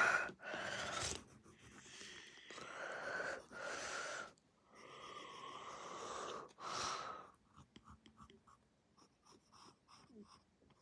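Faint breathing close to the microphone: several soft breaths over the first seven seconds, then quiet apart from a few light ticks.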